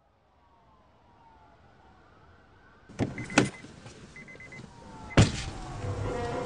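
A Honda SUV's side door: two sharp clicks as it unlatches and opens about three seconds in, then one loud slam as it shuts about two seconds later.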